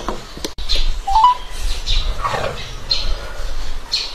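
Birds chirping: short high chirps repeating about once a second, with a couple of lower calls that slide down in pitch.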